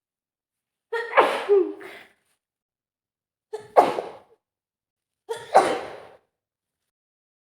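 A woman sneezing hard three times in a sneezing fit from a heavy cold. Each sneeze starts with a short pitched gasp and breaks into a sudden loud burst, and the first comes as a quick double.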